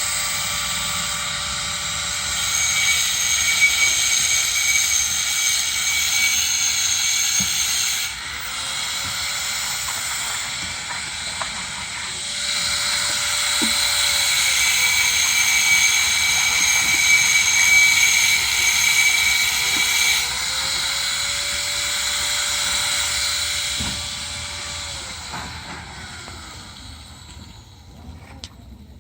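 Electric arc welding on steel tubing: a steady crackling hiss from the arc in several long runs, each a few seconds to several seconds long, trailing off near the end.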